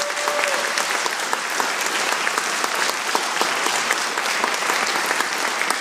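Concert audience applauding: many hands clapping together at a steady level.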